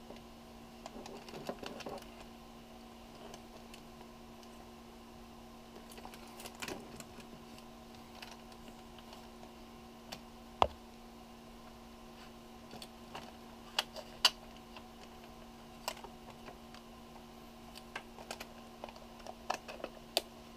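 Polaroid 180 folding pack-film camera being collapsed by hand: light rattles, then scattered clicks and clacks of its metal struts, lens standard and cover latch. There is one sharp snap about halfway through and a quick run of clicks near the end as the cover closes.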